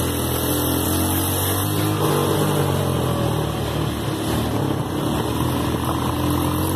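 Mini buggy's engine running under way, its note steady with small shifts in pitch as the throttle changes.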